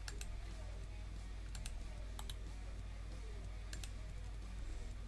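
Computer mouse clicking: four pairs of sharp clicks, over a low steady hum.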